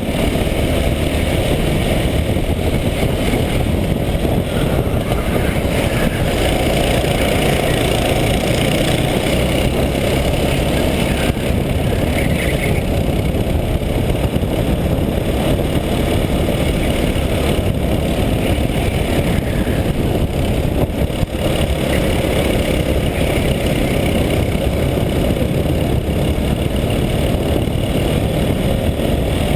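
Racing go-kart's engine running continuously at speed around the track, heard close up from on board the kart.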